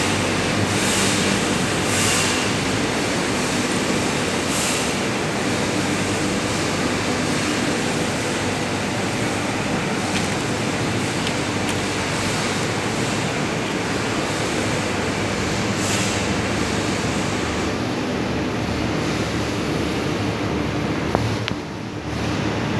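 Steady industrial din of machinery in a wire acid-cleaning plant, with a constant low hum and a few brief hissing swells. There is a sharp click about 21 seconds in.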